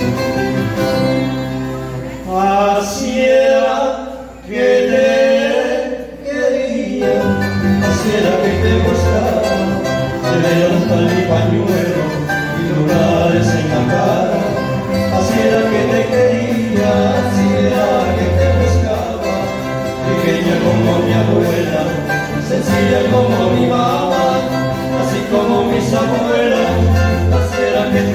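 A Colombian Andean string trio of two acoustic guitars and a twelve-string tiple playing the instrumental interlude of a bambuco-style song. The strings pick a busy run in the first few seconds, then settle into fuller strummed and picked accompaniment.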